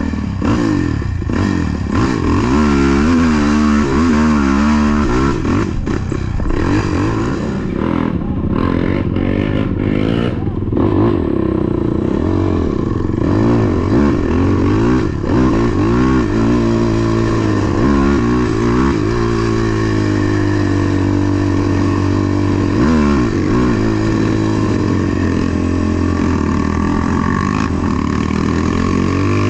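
ATV engine running under load, revving up and down repeatedly as the throttle opens and closes.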